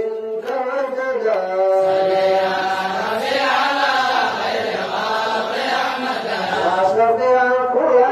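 Voices chanting an Arabic devotional ode in praise of the Prophet Muhammad, with long, drawn-out held notes.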